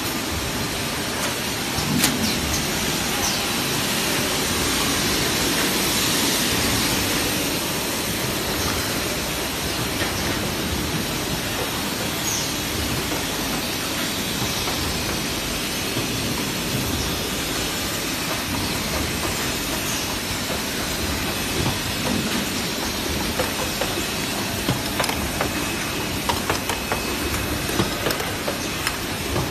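Steady machinery noise of an oil filter assembly line: a continuous mechanical hum and hiss of conveyors and machines, with scattered sharp clicks and knocks that come more often in the last few seconds.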